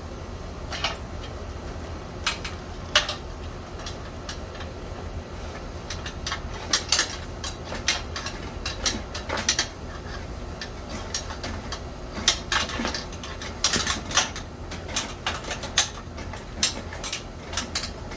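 Flexible dryer-vent cleaning rods with a brush head being pushed by hand into a 4-inch dryer vent duct: irregular clicks, knocks and scrapes of the rods and their joints, coming more often after the first few seconds, over a low steady hum.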